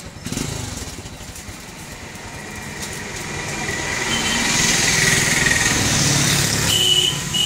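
A motorcycle engine passing by, growing louder over several seconds, holding, then easing near the end.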